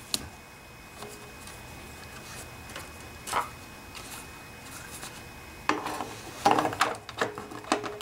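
Plastic air filter housing and foam filter element being handled and fitted on a small generator engine: a few scattered clicks and rubbing, then a busier run of plastic knocks and clatter in the last two seconds.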